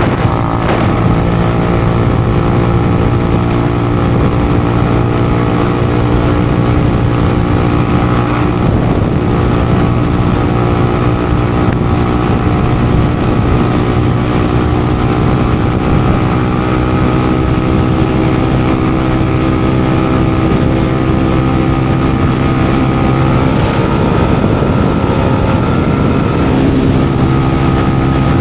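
Engine running through an aftermarket exhaust at a steady speed, the raw exhaust note holding an almost constant pitch throughout.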